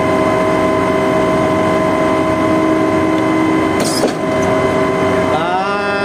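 Putzmeister 49-5 concrete pump's engine and hydraulic pump running steadily with a constant whine, and a short knock with a hiss about four seconds in. The machine is running with low hydraulic pressure, which the crew blame on a faulty accumulator pump.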